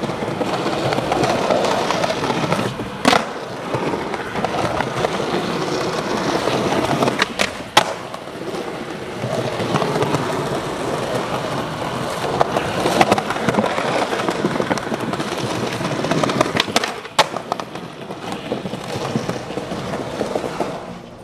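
Skateboard wheels rolling steadily over smooth plaza paving, with about six sharp clacks of the board on the ground at intervals as the skater pops and lands tricks.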